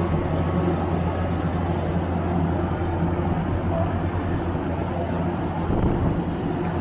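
Road traffic noise with a steady low engine hum from a running vehicle or machine.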